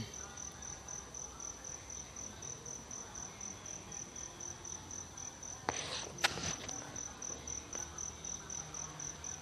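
Insect chirping: a high note pulsing evenly a few times a second over faint background noise, with a few soft clicks a little after halfway.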